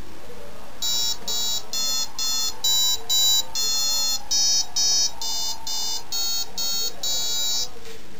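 A run of short electronic beeps, about two a second at shifting pitches, starting about a second in and stopping shortly before the end.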